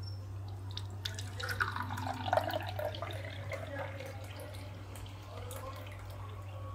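A plastic spigot set into a hollowed watermelon is turned open with a few light clicks about a second in, then watermelon juice pours from it, splashing and bubbling into a glass cup. A steady low hum runs underneath.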